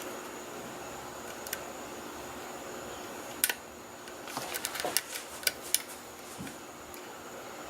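Metal lock pick and tension wrench working the pin tumblers of a rim cylinder held in a vise: a sharp click about three and a half seconds in, then a cluster of light metallic clicks and ticks, over a steady background hum.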